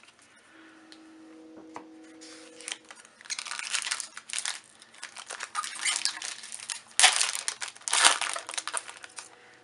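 Foil Magic: The Gathering booster pack wrapper crinkling and being torn open by hand, a run of rustles and tears that starts a few seconds in and is loudest near the end.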